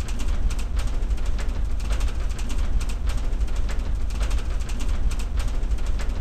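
Old-film noise: a steady low rumble and hiss peppered with irregular crackles and pops, like a worn silent-era film print running.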